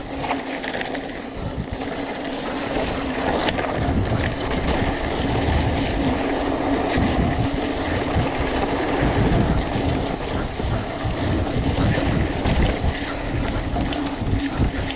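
Wind rushing over the microphone and the tyres of a BMC Twostroke AL 2 hardtail mountain bike rolling over dirt singletrack, with scattered knocks and rattles from the bike. The noise grows louder over the first few seconds and stays up.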